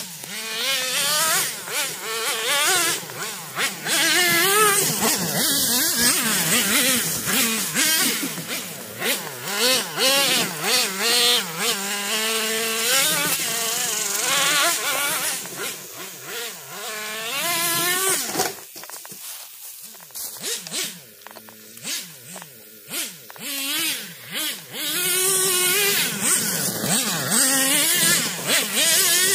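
Traxxas T-Maxx's TRX 3.3 nitro two-stroke engine running and revving, its pitch rising and falling as the throttle is worked. It drops quieter for several seconds past the middle, then picks up again.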